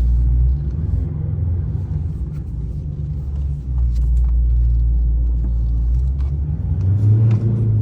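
Dodge Scat Pack 392's 6.4-litre HEMI V8 running at low revs, a deep steady rumble that swells a little midway and again near the end.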